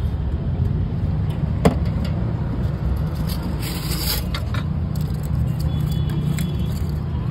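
Steady low rumble of street traffic. A single sharp click comes about a second and a half in, and a brief scrape about four seconds in.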